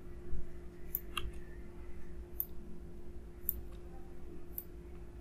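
A computer mouse clicking about five times, roughly once a second, as objects are selected and deleted on screen. A steady faint electrical hum lies underneath.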